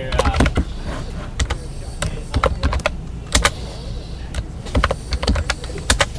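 Computer keyboard typing: short sharp key clicks in irregular runs and clusters, over a steady low hum.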